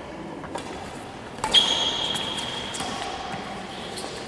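Badminton rackets striking a shuttlecock during a rally in a large hall: a few sharp hits. The loudest comes about a second and a half in and is followed by a high ringing tone lasting about two seconds.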